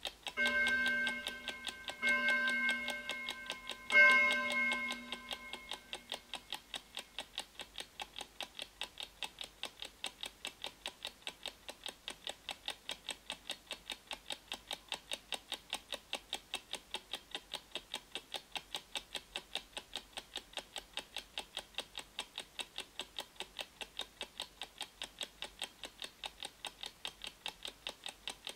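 Clock ticking sound effect of a countdown timer, an even, rapid tick at about three ticks a second. Over the opening seconds it is joined by three pitched chime tones about two seconds apart, the third the loudest and ringing out for a couple of seconds.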